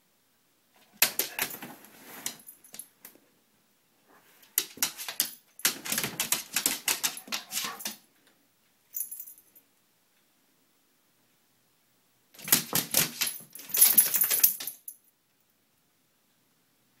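A dog's claws clicking and scrabbling on a hardwood floor, with its collar tags jingling. The sound comes in several bursts of quick clicks with quiet pauses between them.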